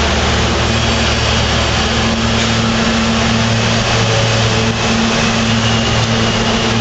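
R160 subway train standing at the platform with its doors open, a loud, steady electric hum and low drone with no change in pitch.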